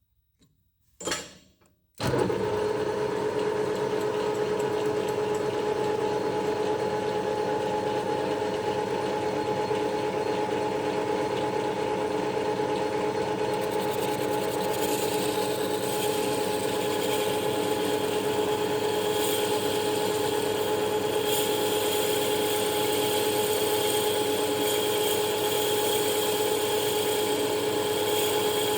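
Electric machine-tool motor switched on about two seconds in, then running steadily with a constant-pitched hum. A harsher hiss joins about halfway through.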